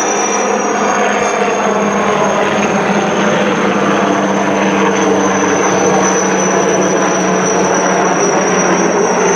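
Sud Aviation Alouette III helicopters in flight, their turboshaft engines and rotors making a steady, loud noise with a thin high whine held over it.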